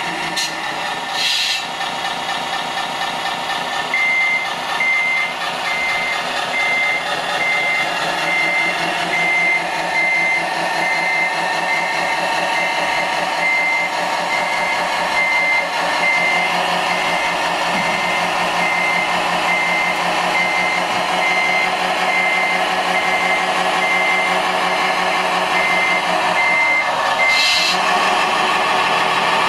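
RC Mercedes-Benz truck's sound module playing a diesel engine running with a reversing beeper sounding in a regular series of beeps as the truck backs its lowboy trailer. A short hiss comes near the start and again as the beeping stops.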